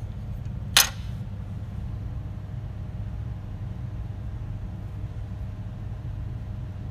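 Lacquered metal flip-top lighter's lid snapping with a single sharp, ringing metallic click about a second in, over a steady low background hum.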